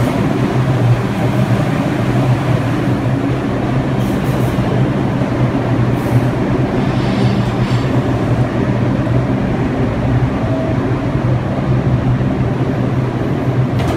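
R142 subway train rolling slowly to a stop beside the platform, then standing with a steady low hum.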